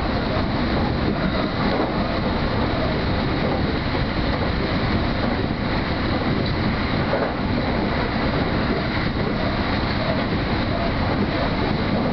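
Hanshin Main Line electric train running along the track, a steady rumble heard from inside the front of the car.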